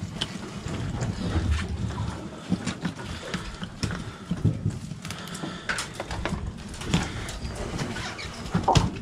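Irregular knocks and clicks of fish being handled and unhooked with pliers on a plastic esky lid, over a low rumble.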